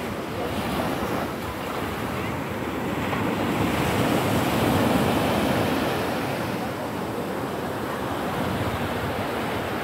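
Sea waves washing up over a sandy beach, with wind on the microphone. The wash swells about halfway through and then eases.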